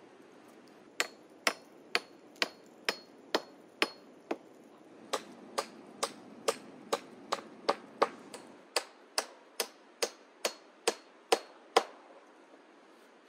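Axe used as a hammer, striking the wooden pole frame of a roof in a steady run of about two blows a second. There is a short break about four seconds in. The earlier blows carry a faint high ring.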